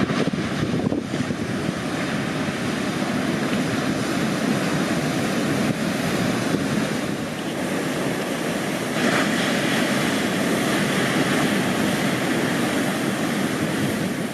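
Atlantic surf breaking and washing in a continuous rush, with wind buffeting the microphone. The wash grows brighter and hissier about nine seconds in, as another wave breaks.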